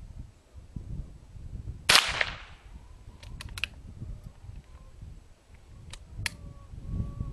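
A single shot from a Henry .22 LR lever-action rifle about two seconds in, followed by a few short metallic clicks as the lever action is worked, and two more clicks near the end.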